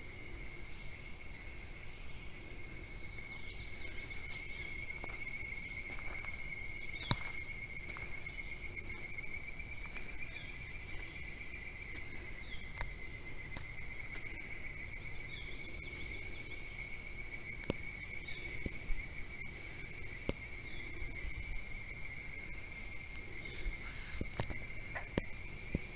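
Steady, high-pitched insect chorus, a fast pulsing drone that holds on one pitch throughout, with a few faint chirps. Scattered clicks come now and then and grow more frequent near the end.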